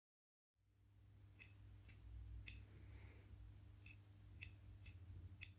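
Faint light clicks, about seven at irregular spacing, as the small model-engine cylinder head is handled, over a low steady hum of room noise.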